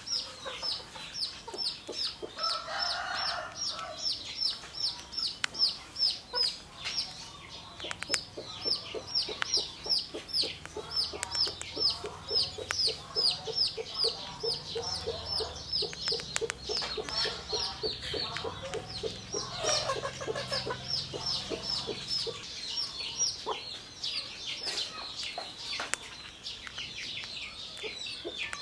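An animal calling in a steady, rapid run of short, high, falling chirps, about four a second, with a few lower calls now and then.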